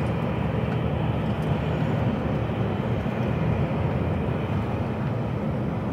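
HGV lorry's engine drone and road noise, heard from inside the cab as the truck runs steadily along a motorway slip road.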